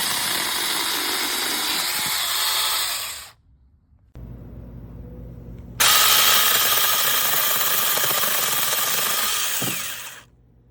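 Small battery-powered 6-inch electric chainsaw running in two long runs. It stops about three seconds in and starts again about six seconds in.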